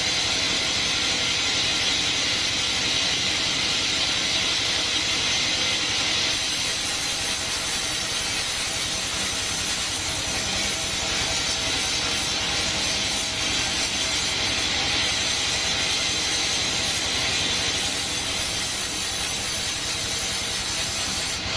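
Band sawmill running steadily, its blade sawing through coconut wood with a continuous hissing whine; the sound brightens about six seconds in.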